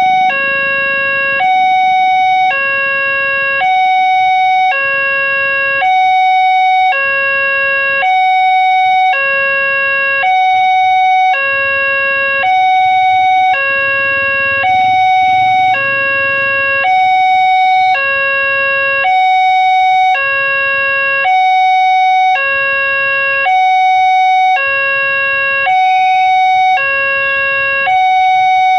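Railway level-crossing warning alarm from the loudspeaker on the crossing signal post: an electronic two-tone sound, a lower and a higher tone taking turns about every two-thirds of a second, repeating steadily. It is the warning that a train is approaching and the barriers are down.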